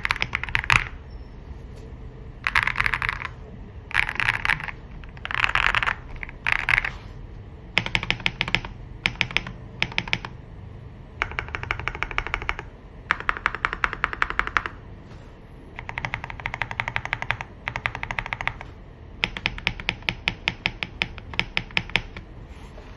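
Stock-switch FL-Esport OG98 mechanical keyboard being typed on in short bursts. Some bursts are fast runs of keystrokes that blur together, and others are separate, evenly spaced key presses, with brief pauses between bursts.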